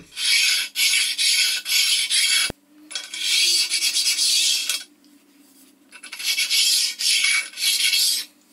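A small abrasive stone rubbed by hand along the inner edges of a cast-iron mini lathe bed, a dry rasping scrape in quick back-and-forth strokes, deburring the sharp edges. It comes in spells, pausing briefly about five seconds in.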